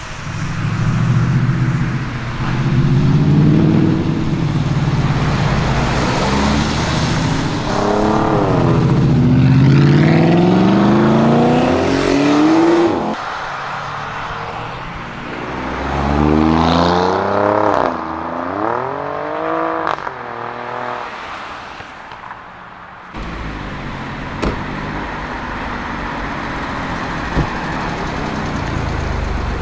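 Alfa Romeo Giulia Quadrifoglio's 2.9-litre twin-turbo V6 accelerating hard in several pulls, the engine note climbing steeply in pitch through the gears. A steadier, lower engine note fills the last few seconds.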